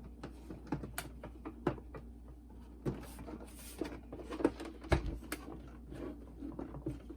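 Scattered small clicks and knocks of plastic boombox parts being handled and fitted back into place, with a heavier thump about five seconds in.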